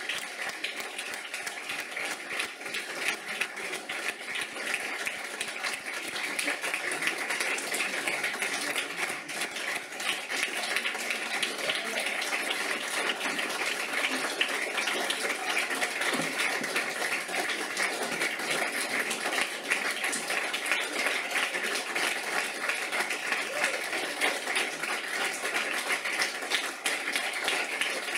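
Audience applauding steadily, the clapping growing a little louder after about six seconds.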